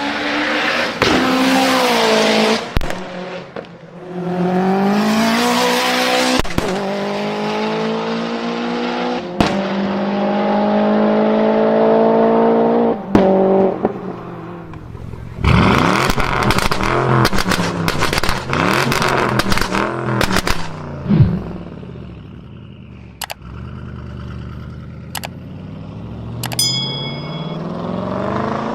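Tuned performance car engine accelerating hard, its pitch climbing and dropping back twice before a long climb. Then, on lift-off, a rapid volley of exhaust pops and crackles, followed by a few single sharp bangs and another rev near the end.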